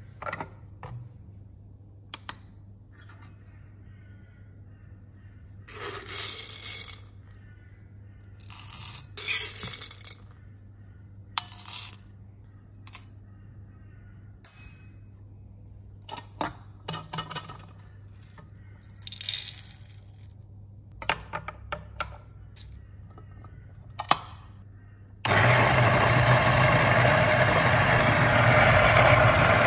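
Whole coffee beans rattling and pouring in a stainless steel dosing cup, with metallic clinks and taps as the cup is handled. About 25 seconds in, a Niche Zero conical burr grinder starts and grinds with a louder steady motor noise.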